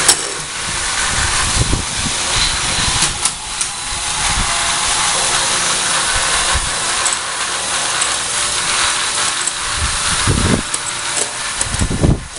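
Battery-powered toy train running with a steady hiss and a mechanical whir of its small gears, with scattered plastic knocks as the locomotive and carriages are set on the track and coupled; a few heavier knocks come near the end.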